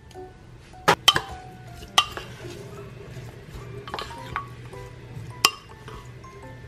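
Wooden spoon tossing seasoned bean sprouts in a ceramic bowl, knocking sharply against the bowl about five times, over soft background music.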